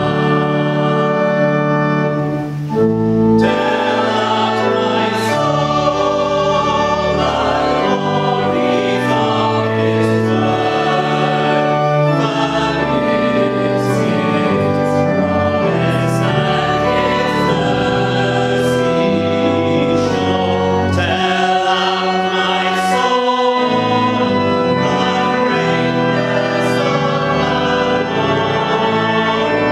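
A small choir of boys' and men's voices singing a sacred choral piece in several parts, with a short break between phrases about two and a half seconds in.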